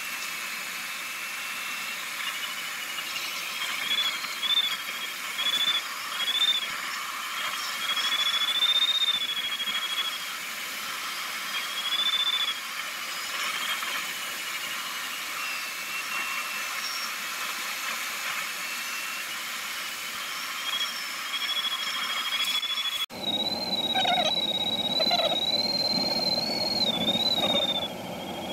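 Glider's electronic variometer tone, a high continuous whistle whose pitch rises and falls with the glider's changing vertical speed, over steady cockpit airflow noise. About 23 s in the sound changes abruptly and the airflow becomes a deeper rumble.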